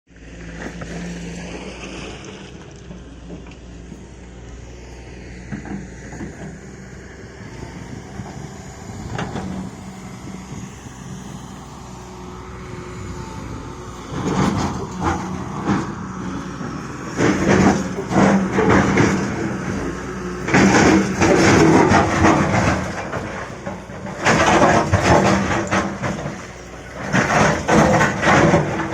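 Liugong 921D excavator's diesel engine running steadily, then from about halfway through a run of five loud, rough bursts a few seconds each as the machine works.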